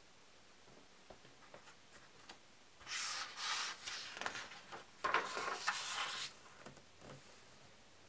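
A paper page of a hardcover book being turned by hand: a dry rustling swish of the sheet lasting about three seconds, in two surges, with a few faint finger ticks on the paper before it.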